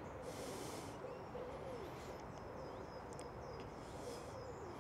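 Faint cooing of a dove, a series of soft low hooting notes repeating throughout, with a brief hiss about half a second in.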